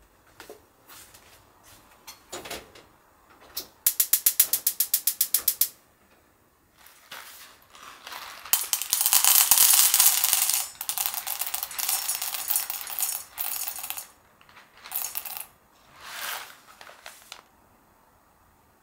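Whole roasted coffee beans poured from a paper bag into a stainless steel mug, rattling against the metal in a long pour of about five seconds. Shorter pours follow near the end. Before the pouring comes a quick, even run of clicks, about eight a second for under two seconds.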